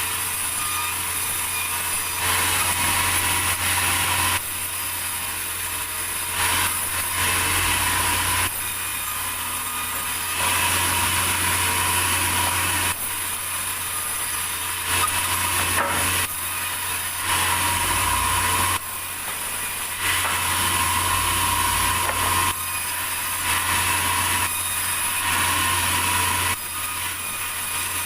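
Sawmill saw cutting through a large durian log, a steady machine hum under the noise of the blade in the wood, its loudness shifting abruptly every few seconds.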